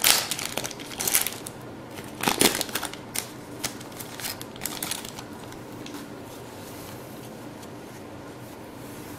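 Wrapper of a baseball card pack crinkling and tearing open in three sharp bursts over the first couple of seconds, followed by a few softer rustles and clicks of the cards being handled, then quiet.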